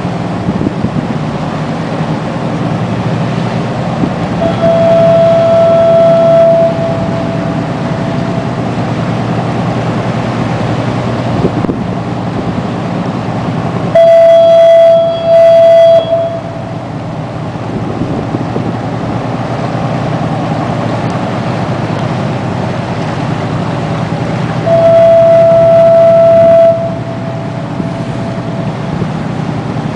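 A fog horn sounds three long, steady blasts of about two seconds each, roughly ten seconds apart, the middle one with a brief break, over the steady drone of the crew boat's Detroit Diesel engines.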